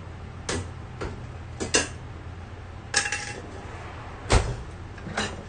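Dishes and cookware being handled, knocking and clinking together: about seven separate clicks and knocks, one with a short metallic ring about three seconds in and the loudest a heavy thump a little after four seconds, over a steady low hum.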